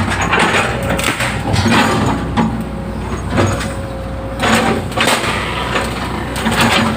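Excavator engine running steadily under load, with repeated cracking and crunching bursts as the bucket breaks through wood and roots in the ditch.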